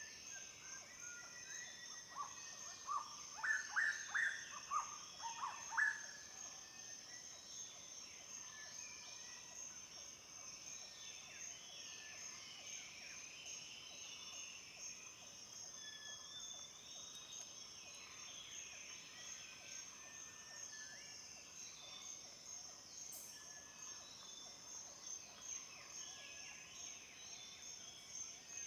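Several birds singing and chirping over a steady, high-pitched insect drone. A louder run of quick chirps comes about two to six seconds in, and scattered softer calls follow.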